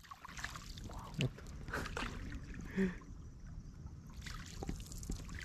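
Quiet water sounds of a small boat moving across a calm lake, with a few soft knocks.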